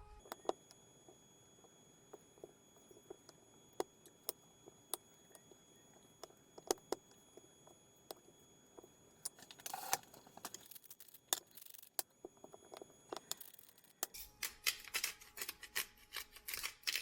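Scattered light clicks and taps of seasoning salt and pepper onto beef short ribs, with a quick run of clicks over the last few seconds.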